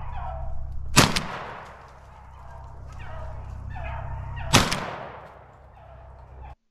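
Two shotgun shots about three and a half seconds apart, each trailing off in a short echo. Beagles bay in repeated calls around and between the shots.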